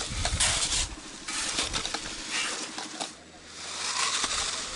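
Gravel crunching and scraping under shovels in short noisy bursts for about three seconds, then a steady hiss.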